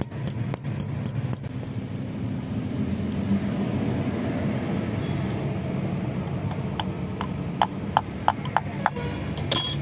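A hand tool clicking and tapping against the steel cylinder of a hydraulic jack: a few light clicks near the start, then a quicker run of sharp metal clicks about seven seconds in. A steady low rumble runs underneath.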